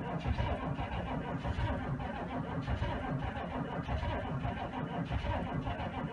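GM 6.5-litre turbo-diesel V8 turning with an uneven low pulsing during a hard cold start. The owner puts the hard start down to dead glow plugs and weak batteries.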